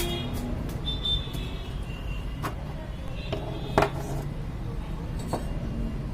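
Steady low rumble, like road traffic, under a handful of sharp clicks and taps, the loudest about four seconds in.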